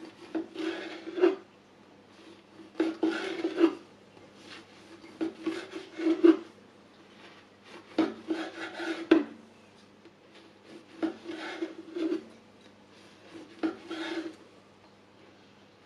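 Long kitchen knife sawing through a freshly baked soft yeast-bread loaf on a wooden cutting board, one slice after another. About seven cuts, each a short rasp of back-and-forth strokes, several ending in a knock of the blade on the board.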